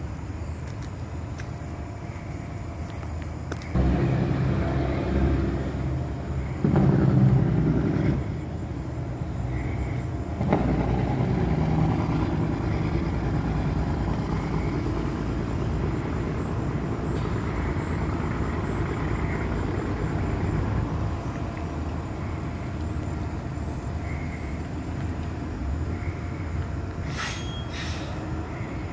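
Transit bus engine pulling away under power: it jumps in loudness about four seconds in, is loudest around seven seconds, then settles into a steady drone that slowly eases off.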